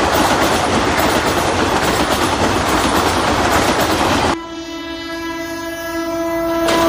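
Battery-powered Centy toy passenger train running on plastic track, a dense rattling clatter. About four seconds in the rattle stops abruptly and a steady train-horn tone with a rich buzzy set of overtones begins and holds.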